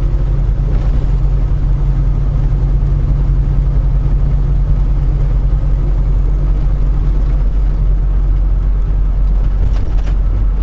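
Semi-truck's diesel engine and road noise heard from inside the cab while driving: a steady low drone that holds constant, with no gear changes or other events.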